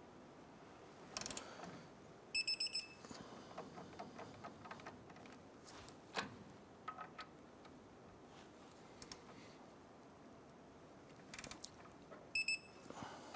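Torque wrench tightening the caliper bracket bolts to 85 ft-lb. Light clicks and handling noise, with two short bursts of sharp, ringing metallic clicks, one about two seconds in and one near the end, as each bolt reaches the set torque.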